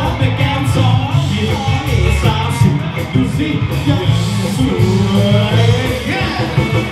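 Live band music played loud through a PA, with a male singer's voice over a heavy, steady bass beat.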